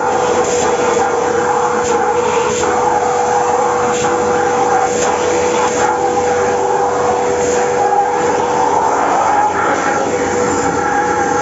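Kärcher WD3 wet and dry vacuum cleaner's 1000 W motor running steadily with a constant whine while it cleans, with a few light clicks.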